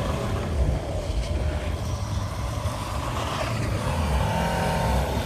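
Volvo XC70 D4's five-cylinder diesel engine running under load, its pitch rising and falling as it revs, with a steady low rumble underneath.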